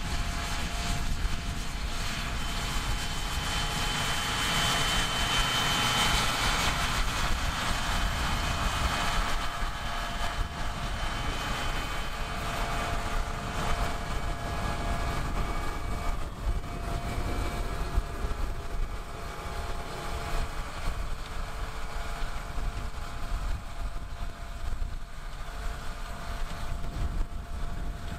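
John Deere 8400R tractor's six-cylinder diesel engine working steadily under load while pulling a strip-till seed drill, with a low rumble and a faint high whine. It is loudest as the tractor passes, about five seconds in, and eases off slightly as it drives away.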